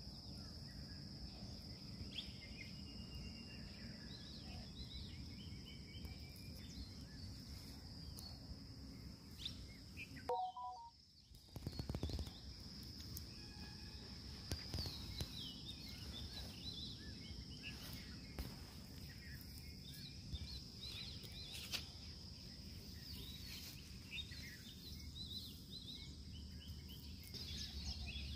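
Rural outdoor ambience: a steady high-pitched insect drone with scattered bird chirps over a low background rumble. The sound drops out briefly about ten seconds in.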